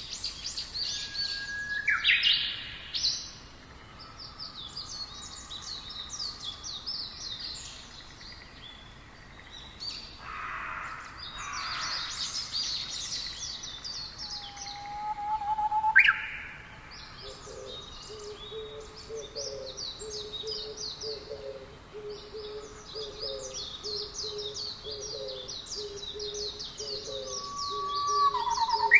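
Several songbirds singing and chirping together, with fast high trills overlapping throughout. Sharp rising chirps come about two seconds in and again just past the middle. A lower note repeats several times a second through the second half.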